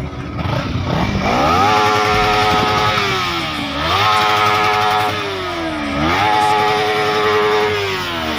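Motorcycle engine revved hard three times, each rev climbing quickly, holding high for about a second and a half, then falling back.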